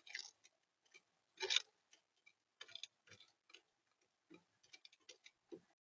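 Faint, irregular clicks and taps on a bird feeder's tray, like a visitor pecking and shuffling seed. The taps are unevenly spaced, with the louder ones near the start and about one and a half seconds in.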